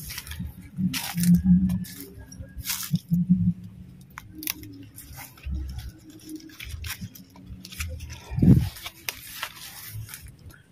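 Leaves and stems rustling, crackling and snapping with footsteps as someone pushes through dense garden plants. A louder low thump comes about eight and a half seconds in.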